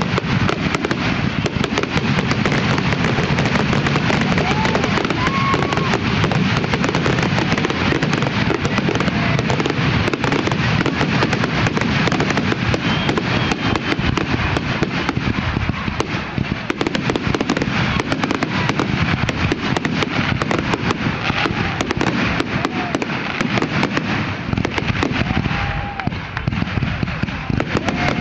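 Aerial fireworks shells launching and bursting in a rapid, continuous barrage of bangs and crackle, easing off briefly near the end.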